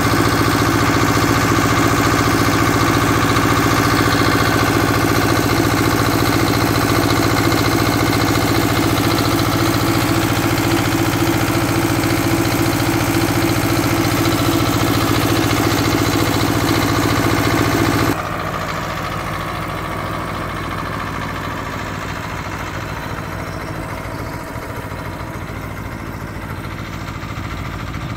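Ursus C-330 tractor's two-cylinder diesel engine running steadily, loud and close from the driver's seat. About eighteen seconds in it cuts to the same tractor heard from farther off, quieter, as it drives along spraying the field.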